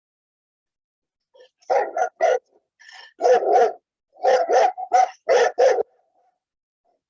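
A dog barking loudly: about ten short barks in quick runs of two or three, starting over a second in and stopping near the end.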